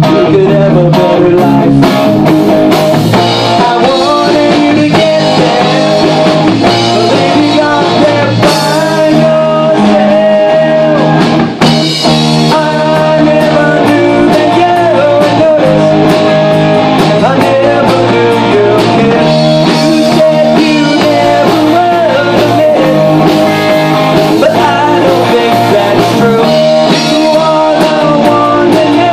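Live rock band playing loudly: electric guitar through a Marshall amp, bass guitar and a drum kit, with a singer's voice over it. There is a brief dip about halfway through.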